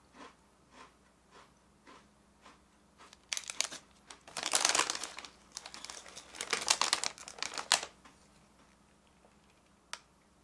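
Plastic snack bag and wrappers crinkling loudly for about four and a half seconds, starting about three seconds in, as a hand rummages through a pack of Japanese dagashi snacks. Before it there are faint, evenly spaced ticks, and one sharp click comes near the end.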